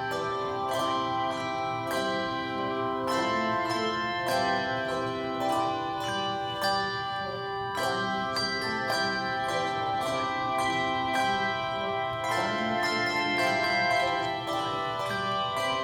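A children's handbell choir playing a Christmas song: many hand bells struck in turn, each note ringing on and overlapping the next.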